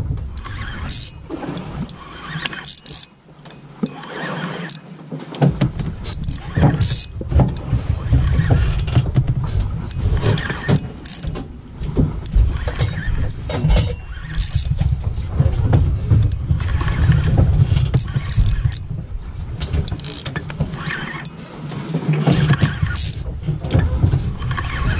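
Steady low rumble of a fishing boat at sea, with scattered knocks and clatter on deck.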